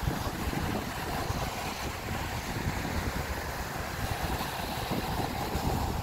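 Sea waves breaking and washing up a sandy beach, a steady surf hiss, with wind rumbling on the microphone.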